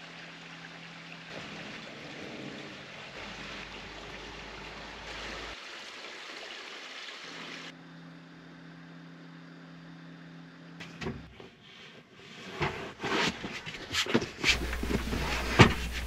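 Steady hiss of rain with a low, even hum beneath it. From about eleven seconds in, scattered knocks and clicks of handling, and a low rumble near the end.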